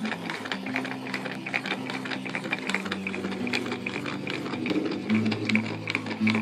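Small printer stepper motor running with a low buzzing hum that shifts pitch in steps, driving plywood elliptical gears whose teeth tick rapidly as they mesh.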